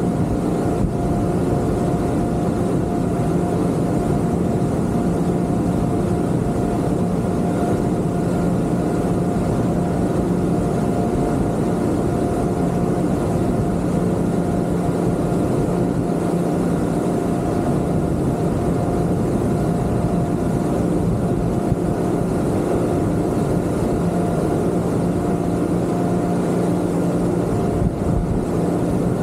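Twin Yamaha 250 outboard motors on a Kingfisher 3025 GFX running at a steady cruise, a constant engine hum with a held tone over a haze of noise.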